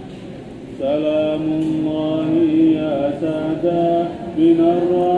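A man's voice chanting Arabic devotional verse into a microphone, in long held notes that slide between pitches, starting about a second in after a short pause.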